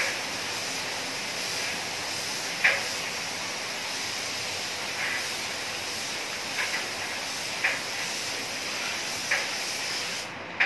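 Compressed-air paint spray gun hissing steadily as it sprays, with a few short, sharp high-pitched sounds every second or two. The hiss cuts off shortly before the end.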